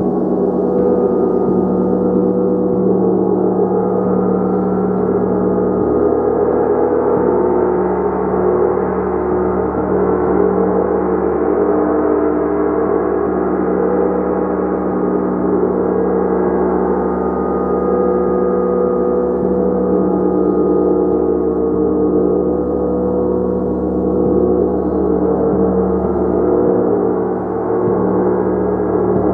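Gong played continuously: a dense, steady wash of many overlapping ringing tones with no break.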